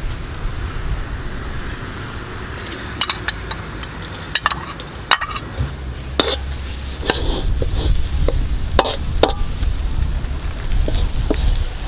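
Metal spoon stirring and scraping minced ingredients in an aluminium wok, with repeated sharp clinks of metal on metal from about three seconds in, over the sizzle of the frying oil.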